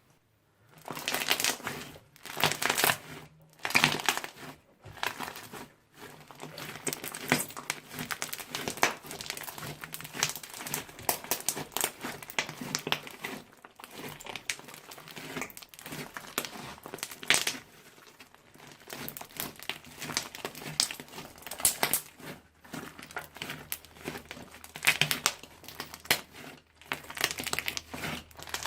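Slime being squeezed and worked by hand, a dense run of small crackling and crinkling clicks with brief pauses in the first few seconds.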